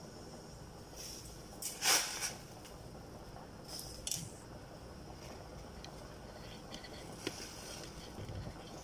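Salt being added to the cooking pot: a few short rustling, scraping noises, the loudest about two seconds in and a weaker one about four seconds in, with small clicks later.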